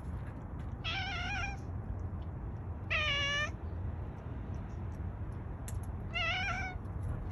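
Gray domestic cat meowing three times, each call under a second long and wavering in pitch, the middle one the loudest.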